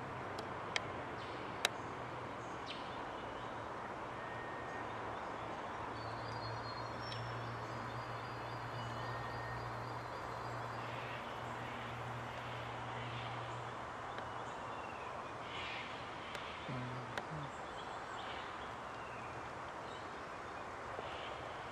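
Steady outdoor background noise with a low hum in the middle, two sharp clicks near the start, and a few faint, distant bird calls in the second half.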